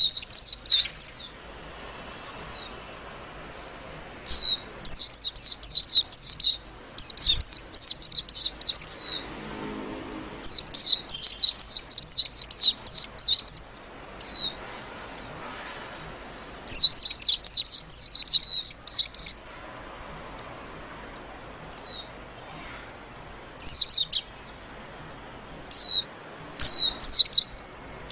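White-eye singing: fast runs of high chirping notes in phrases lasting two to three seconds, separated by short pauses with an occasional single call note.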